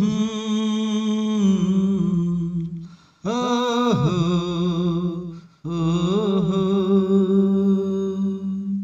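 A man humming the melody of a Hindi children's rhyme without words, in three long phrases of held, steady notes with short breaths between them.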